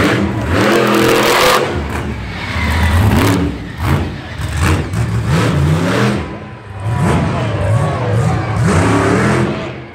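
Monster truck engine revving again and again, its pitch sweeping up and falling back with each blip of the throttle.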